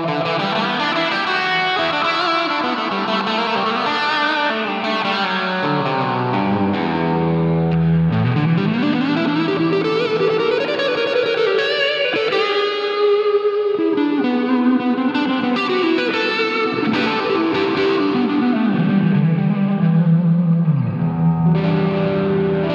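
Electric guitar played through a Line 6 Pod Go's Marshall Plexi amp model with the Searchlights reverb added: overdriven sustained notes and chords with slides and bends up and down in pitch.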